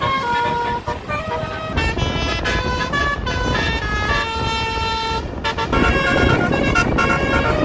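Bus's Basuri 'telolet' musical horn playing a tune of quick stepped notes, over low engine and road rumble.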